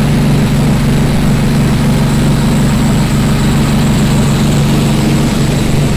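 A heavy engine or machine running steadily at idle, an even low drone that does not change.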